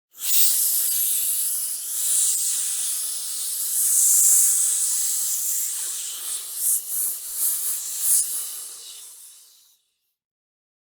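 A person hissing, a long sustained 'sss' of air forced out through the teeth. It lasts nearly ten seconds, flutters in a few pulses in its second half and then fades out.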